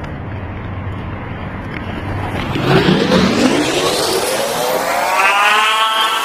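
A motor vehicle's engine running low, then revving up as it accelerates, its pitch climbing steadily for about three seconds from a little over two seconds in.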